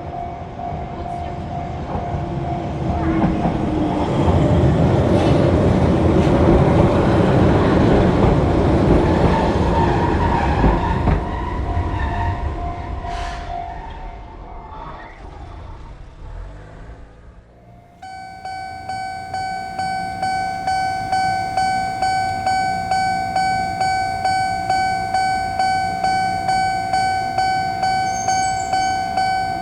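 A train runs through a Japanese level crossing while the crossing's warning bell sounds; the train noise swells and then fades away. About eighteen seconds in, another crossing's warning bell rings on its own, a steady 'kan-kan' at about two strokes a second.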